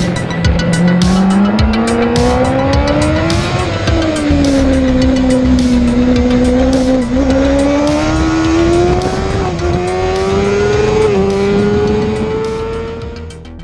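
Kawasaki ZX-10R's inline-four engine at speed: its pitch climbs out of a corner, sags for a few seconds, then rises steadily with a few brief small dips. The sound fades out near the end.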